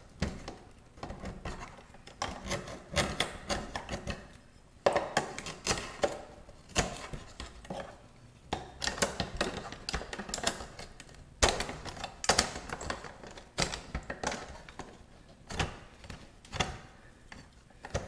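A scraper blade scraping grime off a refrigerator's water dispenser hose: an irregular run of short scrapes and sharp clicks, several a second.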